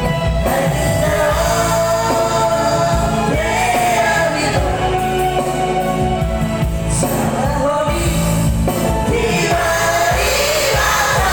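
A sung song over an instrumental backing, the melody line gliding over a steady bass.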